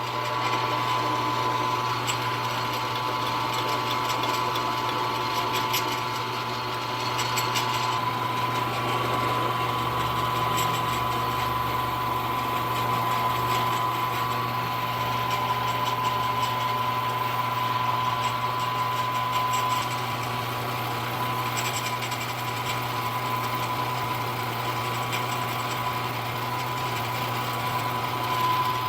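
Benchtop milling machine running steadily with a constant whine while a quarter-inch stub drill drills the part.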